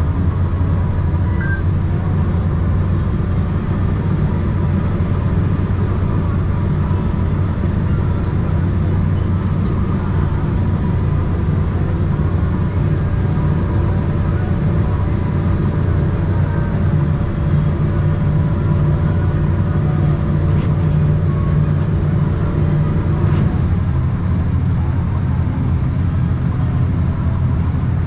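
Claas Lexion combine harvester running steadily while cutting and threshing wheat, heard from inside the cab as a constant low hum.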